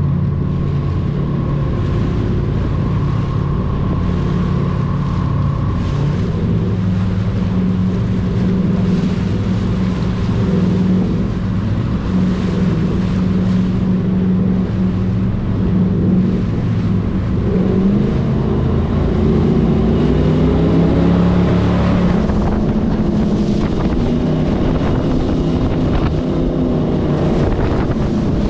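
Twin V8 engines of a 600 hp jet boat running under way at a steady pitch, then rising about two-thirds of the way through as the boat speeds up, and holding at the higher speed.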